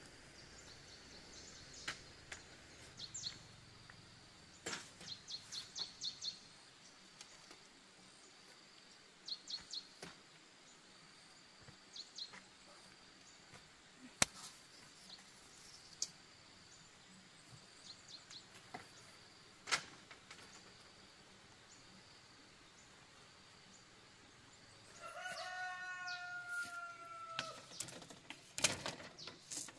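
A rooster crowing once near the end, one long call of about two seconds that falls slightly in pitch. Before it, short high bird chirps in quick little trills and a few sharp knocks.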